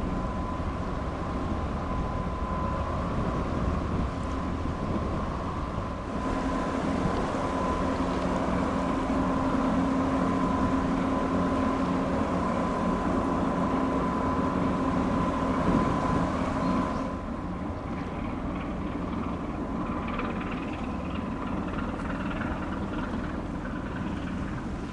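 Steady drone of ship engines, with a constant hum and low rumble. The sound shifts abruptly about six and seventeen seconds in.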